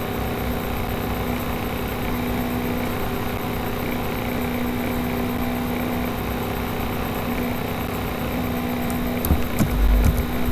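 A steady mechanical hum with a low drone over a hiss, unchanging for most of the time. A few sharp knocks and low thumps come near the end.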